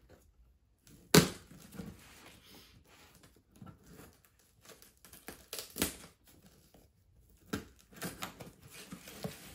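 Packing tape being picked at and slit on a cardboard shipping box with a small pointed tool: scratching and crackling of tape and cardboard, broken by sharp knocks and clicks, the loudest about a second in.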